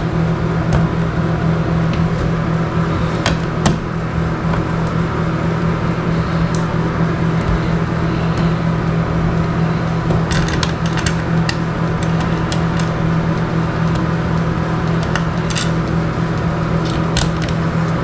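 Bathroom exhaust fan running with a steady hum, with scattered light clicks and metal taps from a screwdriver and screws as a switch cover plate is fitted.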